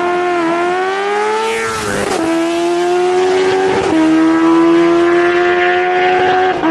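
Superbikes, a Kawasaki Ninja H2 against a BMW S1000RR, at full throttle down a drag strip. Their engines run at high revs, the pitch creeping up in each gear and dropping at each upshift, about four shifts in the span.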